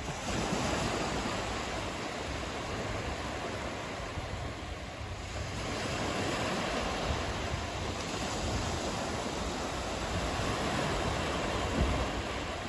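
Small waves breaking and washing up a sandy beach, a steady surf hiss that swells and eases as each wave runs in and draws back. Wind rumbles on the microphone underneath, with a brief low bump near the end.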